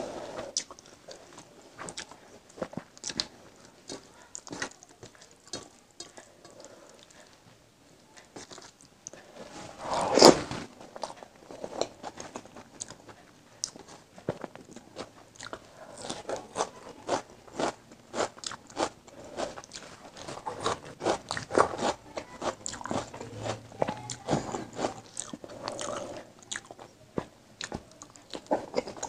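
Close-miked eating by hand: fingers mixing basmati rice into egg curry on a steel plate, with wet chewing and mouth sounds. Many short clicks and smacks follow one another, with one louder bump about ten seconds in.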